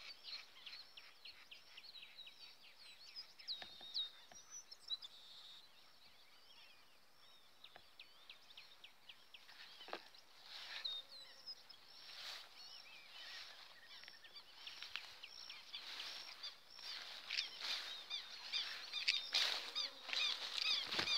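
A flock of marreca ducks calling with many short, high whistled notes, the calls growing denser and louder over the last few seconds.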